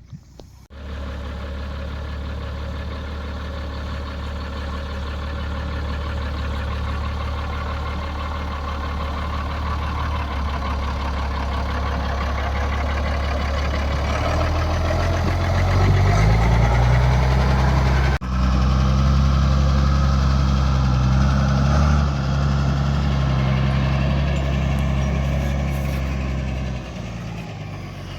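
Tractor diesel engine running steadily; about halfway through its revs rise and hold higher, then the level drops near the end.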